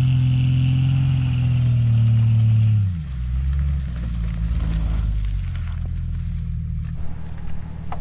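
Vehicle engine held at high revs under load during a mud recovery, then dropping sharply to a lower, rougher drone about three seconds in.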